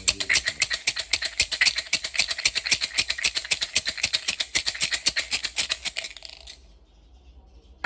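Bamboo fortune sticks rattling in a kau cim cup as it is shaken hard to draw a stick, a quick run of many clicks a second that stops about six and a half seconds in. A single sharp click comes at the very end.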